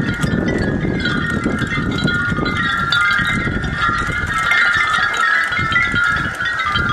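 Hanging glass wine-bottle wind chimes clinking and ringing together in the wind: a dense, continuous jangle of many overlapping bright tones. Underneath is a low rumble that fades about five seconds in.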